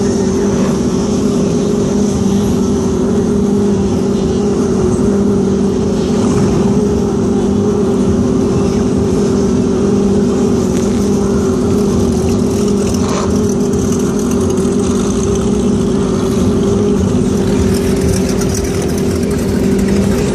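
Engine of a small watercraft cruising slowly, a steady drone whose pitch holds level.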